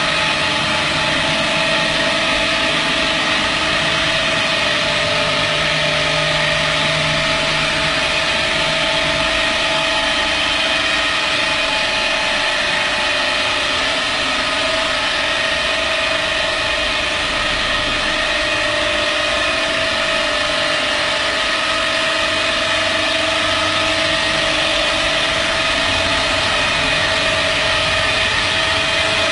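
Romlon R590 concrete floor grinder running and grinding a concrete floor with its magnetic diamond heads: a steady motor whine over a constant grinding hiss.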